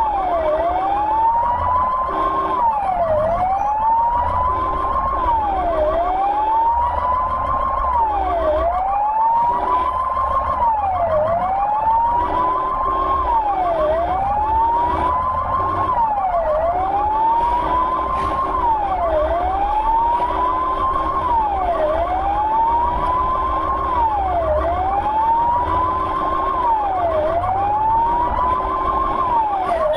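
Ambulance siren wailing in a steady repeating cycle, each cycle rising slowly and then dropping sharply, about every two and a half seconds, over engine and road rumble. A lower steady tone sounds on and off beneath it in short and longer stretches.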